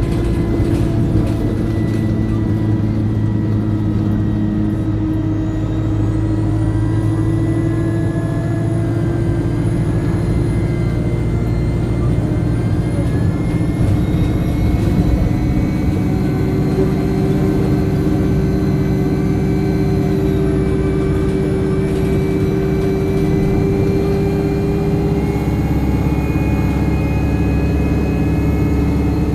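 Alexander Dennis Enviro200 single-deck bus running along with its engine going steadily and a high turbocharger whine. The whine rises and falls from about six seconds in.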